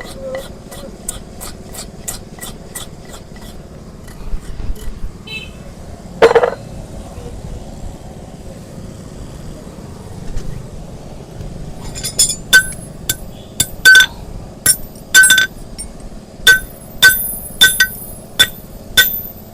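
Metal hoof-trimming tools striking during donkey hoof work: light rapid ticking for the first few seconds, a single thump about six seconds in, then from about two-thirds of the way through a run of sharp, ringing metallic clinks about two a second.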